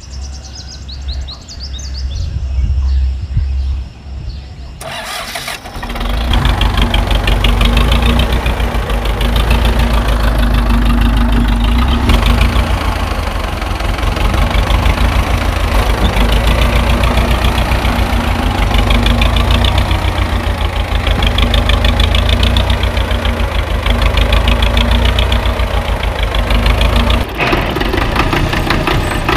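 Tractor engine starting about five seconds in, then running steadily with a fast, even low pulsing.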